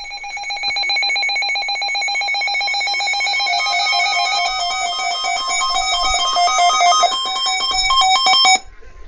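Loud electronic alert signal: a fast-pulsing series of beeps that steps between several pitches, cutting off abruptly near the end.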